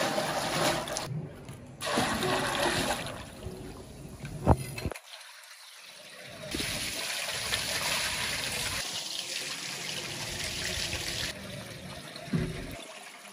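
Water poured from an aluminium pot splashing into a large cooking pot of liquid. After a single sharp knock and a break, water from a hose runs steadily into an aluminium pot as raw beef pieces are washed in it by hand, trailing off to a trickle near the end.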